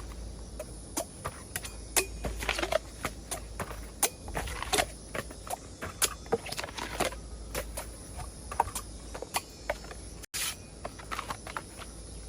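Bamboo shoots being cut: a string of irregular crisp cracks and snaps at uneven spacing, some much louder than others, over a steady low rumble. The sound drops out for a split second about ten seconds in.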